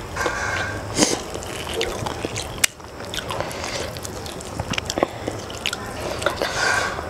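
Hand mixing and squeezing rice into fish curry on a stainless-steel plate: wet squelching with occasional sharp clicks against the steel.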